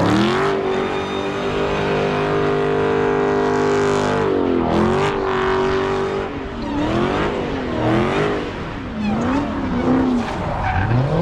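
Car engine doing a burnout with the tyres skidding. The revs climb quickly and hold high for about four seconds, dip and hold high again, then rise and fall in quick waves through the second half.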